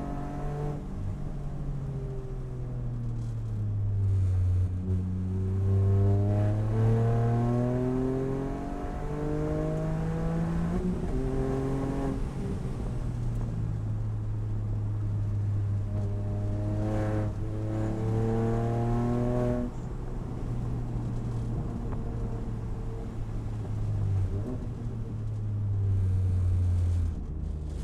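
Toyota GR Yaris's turbocharged 1.6-litre three-cylinder engine working hard through a lap. Its pitch climbs steadily as it revs up through the gears and drops sharply at each upshift, about three times.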